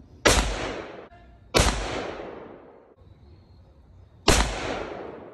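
Three shots from a Bergara B-14 HMR bolt-action rifle in .308, the first two about a second and a half apart and the third nearly three seconds later, each report trailing off over about a second.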